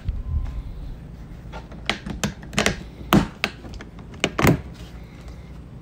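Hard plastic ATV trunk box lid being pushed shut and latched: about half a dozen sharp clicks and thunks, the loudest about three seconds in and again about four and a half seconds in.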